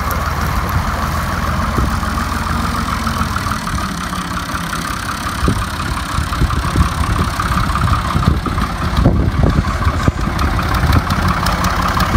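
Diesel engine of an orange Ghazi farm tractor running steadily under load as it drags a rear leveling blade through loose sand, with a few knocks in the second half.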